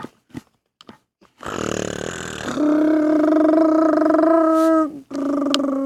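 A child's voice doing a loud mock roar: a rough growl starting about a second and a half in that turns into a long held cry, breaking off and starting again briefly near the end.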